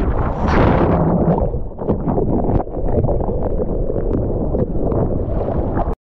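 Ocean whitewater and spray splashing right at a surfer's POV camera, with wind buffeting the microphone. It is loudest about half a second in, then turns into a run of sharp splashes, and cuts off suddenly near the end.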